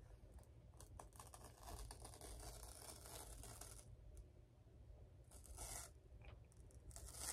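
Faint tearing of the pull-tab seal strip on a new iPad box. A long stretch of slow tearing is followed by two short rips later on.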